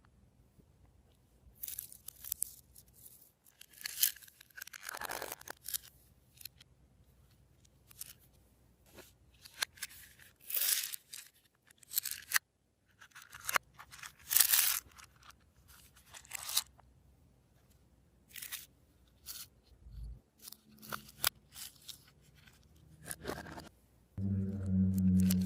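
Glossy slime being squished and kneaded by hand, giving off irregular bursts of sticky crackling and popping with short pauses between.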